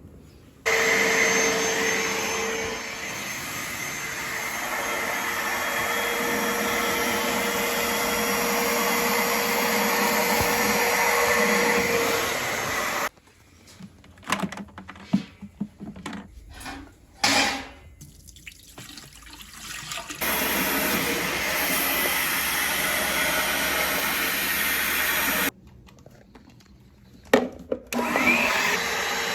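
A vacuum cleaner running in long steady stretches with a constant whine, cleaning the seat upholstery. It starts and stops abruptly, and between the runs there are scattered knocks and handling clicks.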